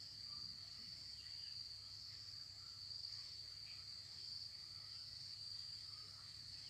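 Faint, steady high-pitched insect trill that carries on unbroken, with a few faint short chirps over it.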